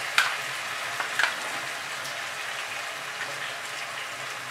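Ridge gourd pieces sizzling as they fry in hot oil in a kadai, a steady hiss, with two short clicks about a second apart near the start.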